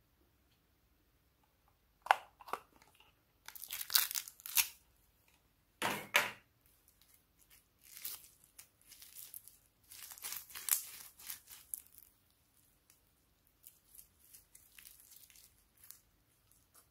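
Red bead-filled slime being stretched and pulled apart by hand: sticky, crackling tearing noises in irregular bursts, the loudest in the first two-thirds and fainter toward the end.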